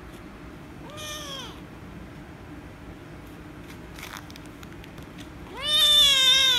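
Orange-and-white rescue kitten meowing as it is petted. A short, quieter meow comes about a second in, then a loud, long meow near the end that rises and falls in pitch.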